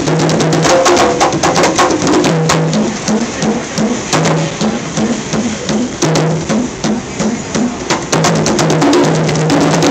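Congas played by hand: a fast, steady rhythm of sharp strikes mixed with short ringing drum tones.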